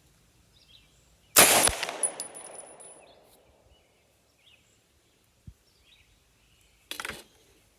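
A single gunshot from a semi-automatic Sten Mk2 kit build, with a sharp crack and a tail that dies away over about a second and a half. It is the first test shot of the build, with one round loaded, and it fires. A shorter, quieter metallic clatter follows near the end.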